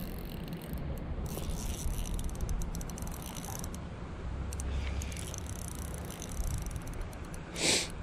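Fishing reel working while a hooked smallmouth bass is played: runs of fine mechanical ticking and gear whir over a low rumble, with a short hiss near the end.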